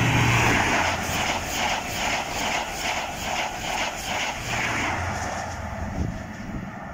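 InterCity 125 High Speed Train running through at speed: the leading Class 43 diesel power car's engine drone, then the steady rhythmic clatter of the coaches' wheels, about two or three beats a second. The rear power car's engine comes by near the end, and the sound fades away.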